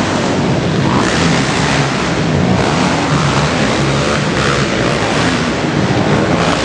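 Racing ATV engines revving on a motocross track, heard as a loud, unbroken drone of several engines blended with a rushing noise.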